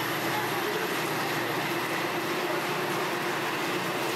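Metra commuter train moving through a station: a steady rush of wheel and engine noise that holds even throughout.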